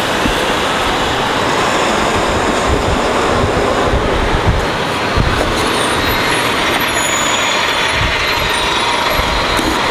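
Nova Bus RTS transit bus with a Detroit Diesel Series 50 engine pulling away and driving close past, its diesel engine and road noise a steady loud wash with a few heavier low surges.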